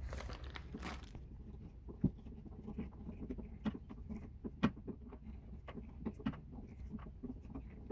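Tubing cutter being turned around a copper water pipe to cut it: a run of small, irregular clicks and scrapes.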